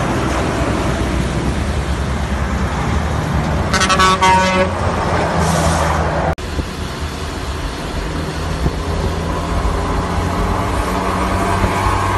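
A car engine running steadily, with a vehicle horn blowing once for about a second, about four seconds in. The sound drops out for an instant a little after six seconds.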